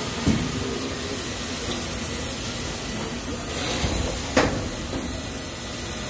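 Steady hiss and hum of running factory machinery, with two short knocks: a small one just after the start and a louder one past four seconds in.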